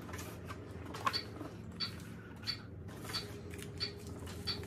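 Packaging being unwrapped by hand: soft rustling with light, sharp clicks, about three every two seconds, over a low room hum.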